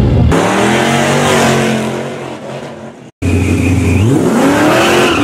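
Car engines accelerating in two short clips: a steady engine note, an abrupt cut to silence about three seconds in, then an engine revving up with a rising pitch near the end.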